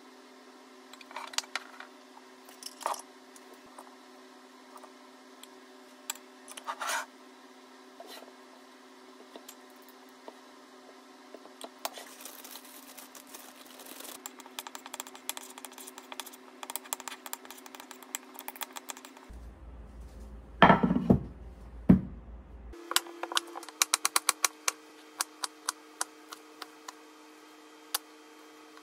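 Kitchen prep sounds in short cuts: a metal spoon clinking and scraping in a ceramic bowl, a few heavier knocks, then a knife chopping fresh cilantro on a wooden cutting board in fast, even taps.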